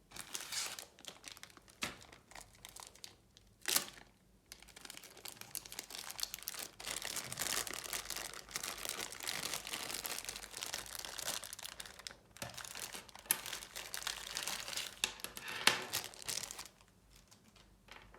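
Packaging being unwrapped and handled: a long spell of crinkling and rustling, with a sharp click about four seconds in. The rustling stops shortly before the end.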